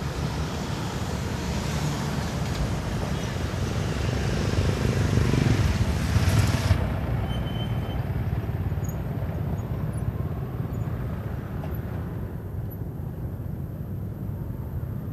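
Road traffic passing a level crossing, with a vehicle going by loudest about six seconds in. After that the hiss drops away, leaving a low rumble.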